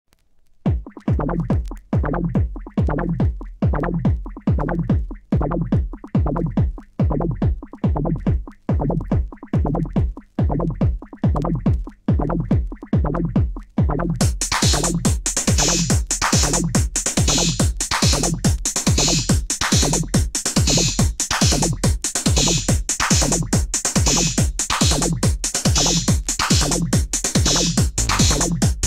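Opening of an electronic dance track: a drum-machine kick drum beating about twice a second. About halfway through, a bright, hissing high layer comes in over the beat and carries on.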